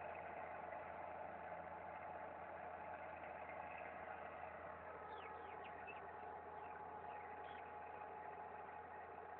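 Massey Ferguson 650 HD tractor's diesel engine running steadily under ploughing load, faint with distance. A few short, falling bird chirps come about halfway through.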